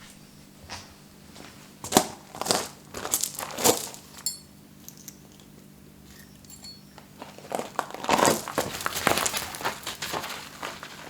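Irregular crinkling and rustling handling noises with small clicks, in two bursts: one about two seconds in and a longer one past the middle, over a faint steady hum.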